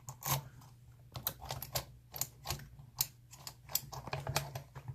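Irregular sharp clicks and taps of a metal euro cylinder lock and tools being handled, several a second, over a steady low hum.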